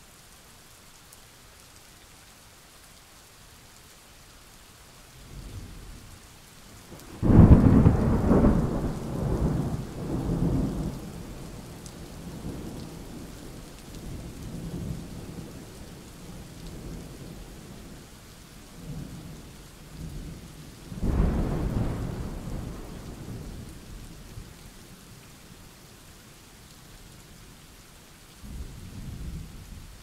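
Steady rain with thunder. A loud crack about seven seconds in rolls on for several seconds, a second peal comes about twenty-one seconds in, and a short low rumble follows near the end.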